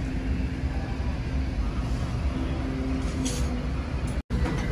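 Busy food-hall kitchen ambience: a steady low rumble with faint background chatter, and a brief hiss about three seconds in. The sound cuts out for an instant near the end.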